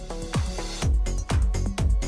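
Electronic dance music with a steady kick drum about twice a second; a heavier bass line comes in about a second in.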